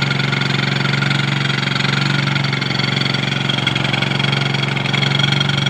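Old Tossa motorcycle engine idling steadily.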